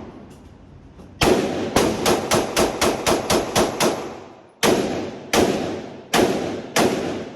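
Semi-automatic pistol shooting a rapid string of about eleven shots, then four slower, spaced shots, each with a short echoing tail.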